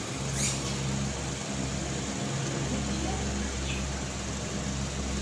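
Steady low mechanical hum of a motor running, with a brief scratch about half a second in.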